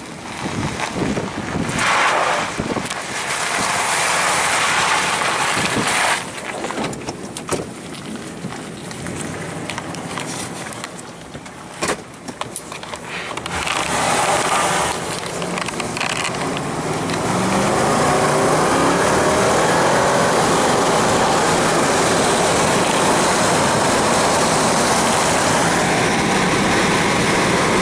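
Rough noise with knocks for about the first half. Then a pickup truck's engine and road noise take over: the engine pitch rises as it pulls away, and it settles into steady driving.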